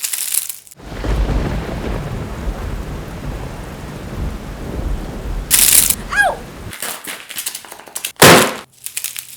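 Thunderstorm-like sound effect: a steady rumbling, rain-like hiss with a heavy low rumble. Near its end comes a short burst and a brief falling squeal, and about eight seconds in a loud sharp bang.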